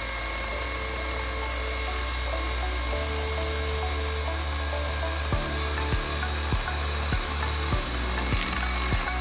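Kobalt 80V battery-powered chainsaw with an Oregon bar and chain running steadily as it cuts through a wooden board. About five seconds in, a regular beat of background music comes in, a little under two thumps a second.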